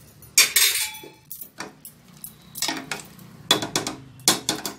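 Steel spoon clinking and scraping against the inside of a metal pressure cooker pot while its contents are stirred: a string of separate knocks, one ringing briefly about a second in.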